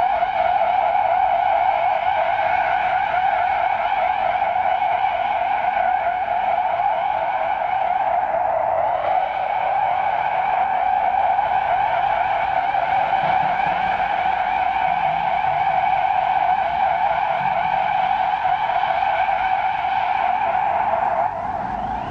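Synthesized alien sound effect: a sustained, rapidly warbling electronic tone with several overtones. It drops in level about 21 seconds in.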